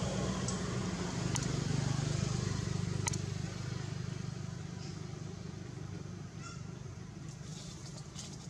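Low steady motor hum that swells about two seconds in and then slowly fades, with two sharp clicks in the first few seconds.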